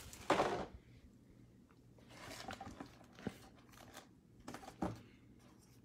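Foil trading-card packs crinkling and rustling as they are handled and stacked. A louder crinkle comes just after the start, then softer rustles, a sharp tap and a last burst of rustling near the end.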